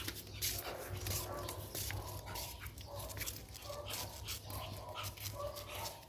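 Toy poodle giving short, thin whimpers a few times, over a steady rustling.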